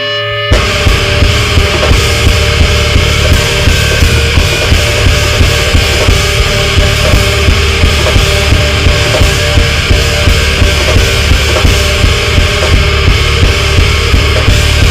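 Metalcore band recording: after a swelling sustained intro tone, the full band crashes in about half a second in with distorted guitar, bass and drums keeping a steady pounding beat. The mix is mastered very hot and dense.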